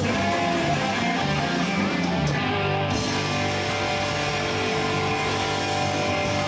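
A live rock band playing loudly, electric guitars to the fore, in a continuous stretch of a song.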